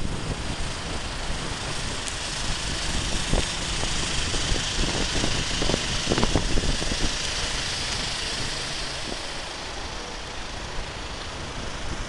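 Wind buffeting the camera microphone, a steady rumbling hiss with a few stronger gusts, the strongest around six seconds in.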